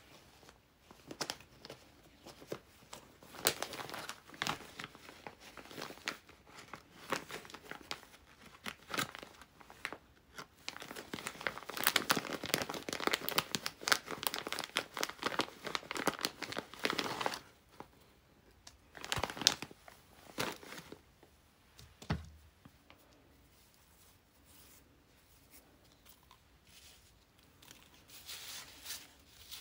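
Clear plastic zip bag crinkling and rustling as lace and fabric scraps are pulled out of it, with fabric and paper rustling on the table. The crinkling is heaviest about midway, and there is a soft thump a little past two-thirds through.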